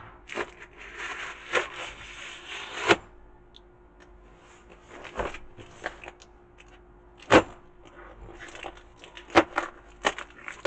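A knife slitting the packing tape and cardboard of a box: a scraping tear of about two and a half seconds that ends in a sharp crack. Then the cardboard box is handled and its flaps pulled open, with scattered sharp knocks and rustles.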